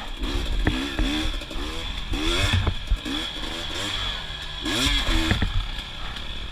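Two-stroke single-cylinder dirt bike engine (KTM 250 XC TPI) revving up and dropping back in short, repeated bursts of throttle, with a few sharp knocks as the bike crosses rough ground.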